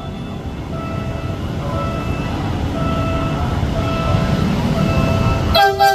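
DHL 9001 diesel-hydraulic locomotive running, its low rumble growing louder as it approaches, with a faint tone repeating about once a second. The locomotive horn sounds loudly near the end.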